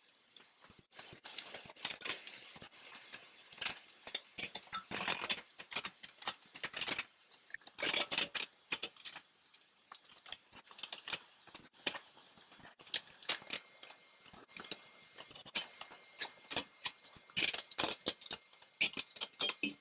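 Irregular light clicks, taps and clinks of small hard objects being handled, coming in uneven clusters with no steady rhythm.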